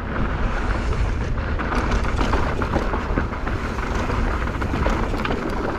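A mountain bike running fast down a dirt trail. Wind rumbles on the microphone, the tyres rush over the ground and many small clicks and rattles come from the bike.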